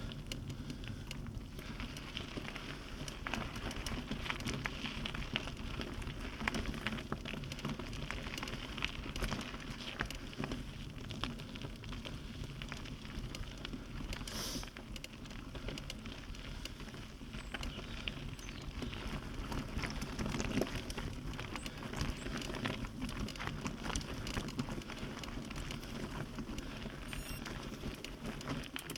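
Tyres crackling and crunching over loose dirt and stones on an off-road climb, with a steady low rumble underneath.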